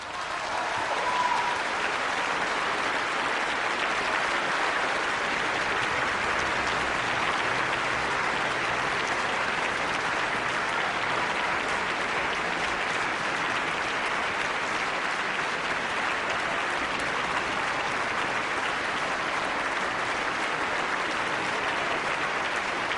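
Concert audience applauding steadily after an orchestral performance ends, swelling up within the first second and then holding.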